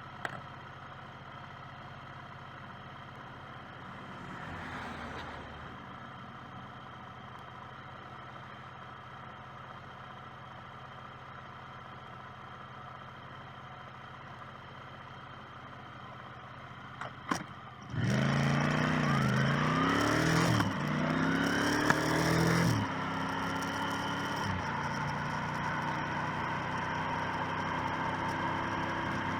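Motorcycle engine idling steadily, with a sharp click just before it pulls away. About eighteen seconds in it accelerates, the engine pitch rising twice with a drop between as it shifts up, then it settles into a steady cruising hum.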